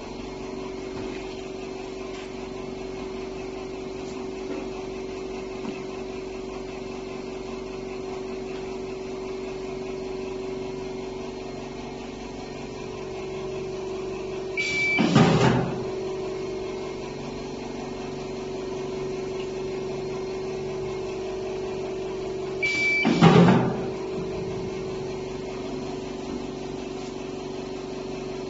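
Automatic checkweigher's conveyor belt running with a steady hum. Twice, about halfway through and again about eight seconds later, a short high beep is followed by a loud burst of noise lasting about a second.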